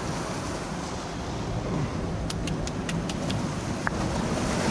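Steady wash of surf and wind on a rocky shore, with a quick run of about five light taps a little past halfway and one more near the end: abalone meat being tenderized by tapping it with a hand-held rock on the rock shelf.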